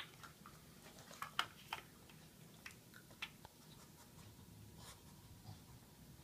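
Quiet room with a few faint, scattered clicks and taps.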